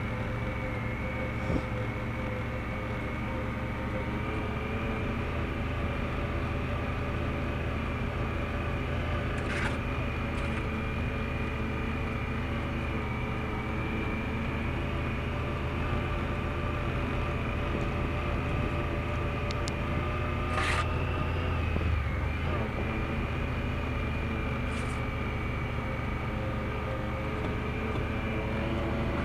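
Honda Pioneer side-by-side's engine running steadily as the machine drives along a dirt trail, heard from inside the cab, with a steady high whine over it. A few brief clicks or rattles come through, about a third of the way in and again past the middle.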